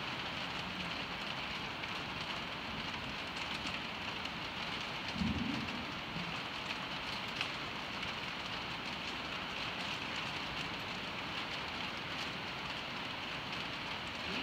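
Steady rain on the metal roof of an indoor arena, an even hiss throughout, with one brief low thud about five seconds in.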